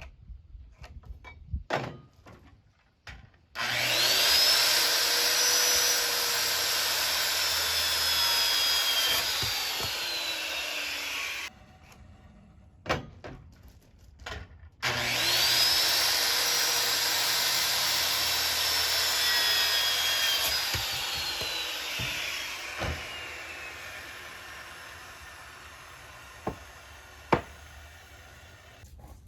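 Electric power saw cutting through 4x6 timber twice. Each time the motor whines up to speed and cuts through the wood for several seconds. The first cut stops abruptly; after the second the motor's pitch winds down. A few knocks sound between the cuts and near the end.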